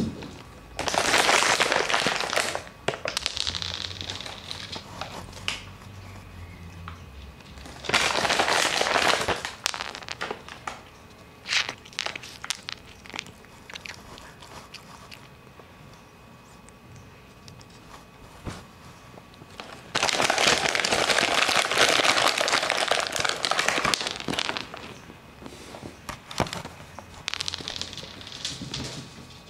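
Plastic bag of cat treats crinkling and rustling in four bursts, the longest about four seconds, with scattered small clicks and crunches in between.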